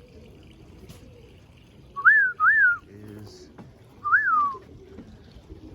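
A person whistling to call racing pigeons in to the loft: two quick whistles that rise and then fall, then a third about a second and a half later.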